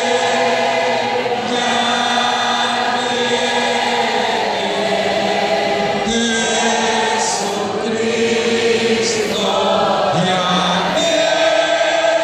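A large group of voices singing together in long held notes, a congregation singing a hymn.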